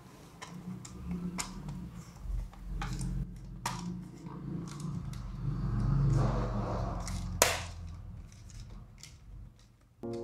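Plastic calculator case handled and pressed back together: scattered small clicks and rubbing, with one sharp click about seven seconds in.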